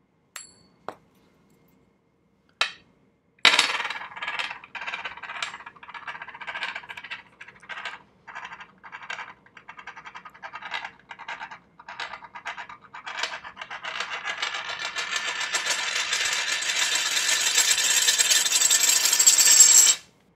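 A coin spun on a hard surface: a few light taps, then a sharp clack as it is set going, a long ringing rattle, and a continuous whirring that grows louder over the last several seconds before stopping abruptly as the coin falls flat.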